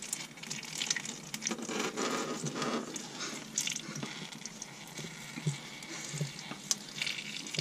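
Oil filter on a Ford Fiesta ST's engine being unscrewed by a gloved hand along its long thread, giving a run of irregular light clicks, rubs and scrapes.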